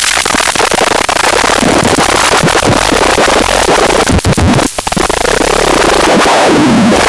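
Loud, harsh, distorted electronic sound, noisy and music-like, with a brief drop about two-thirds of the way in and a sweeping pitch near the end.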